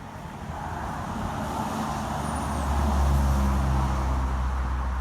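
A motor vehicle's engine and tyre noise building up, loudest about three seconds in, with a steady low engine hum that sets in partway through and keeps going.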